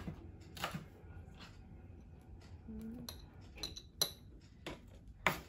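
Kitchen knife knocking on a wooden cutting board as bell pepper is sliced, with light clinks as pieces are put into a glass jar. About eight short, sharp knocks and taps, the loudest near the end.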